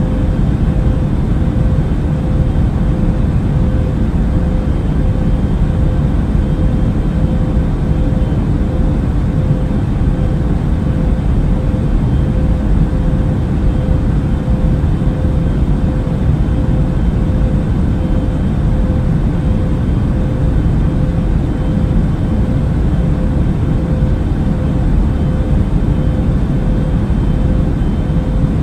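Wide-body jet airliner cabin noise: a steady, deep rushing drone with a faint steady hum above it.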